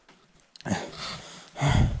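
A person breathing heavily and fast, close to the microphone, with two loud breaths about a second apart that rumble on the mic.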